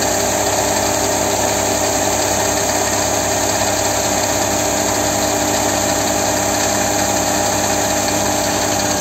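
3 HP DC series motor running steadily under load, at about 676 rpm: a continuous hum with a few steady whining tones over it.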